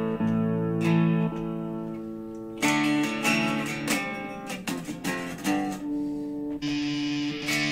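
Gibson Les Paul electric guitar played through a Digitech RP55 multi-effects processor. A chord rings out for about two and a half seconds, then come picked notes and strummed chords, with the tone turning brighter near the end.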